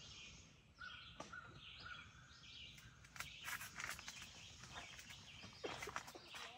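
Faint birdsong from outside the tent: repeated short chirps and whistled notes. Soft rustling and handling noise comes in over the second half.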